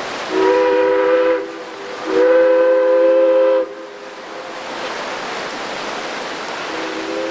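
Steam locomotive's whistle sounding a chord of several notes: a blast of about a second, then a longer one of about a second and a half, with a third starting near the end. Under it runs the steady rush of a whitewater mountain creek.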